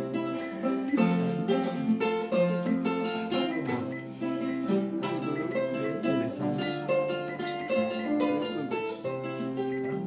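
Solo acoustic guitar playing an instrumental break between verses of a song: chords picked and strummed in a steady rhythm.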